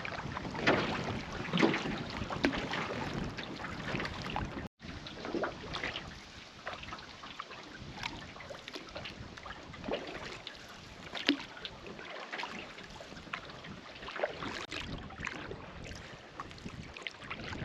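Water splashing and trickling in irregular spurts over a steady rush, with wind on the microphone. The sound drops out for an instant about five seconds in.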